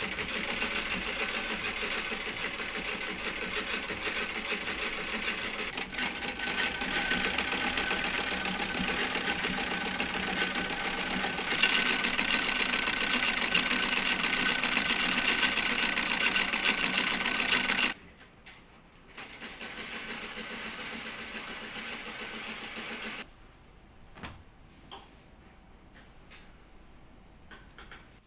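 Old treadle sewing machine running, a steady fast stitching rattle that gets louder partway through and stops suddenly. A shorter, quieter run follows, then a few light clicks.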